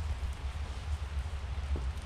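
Steady outdoor ambient noise with a low rumble and a few faint ticks, one about three-quarters of the way through.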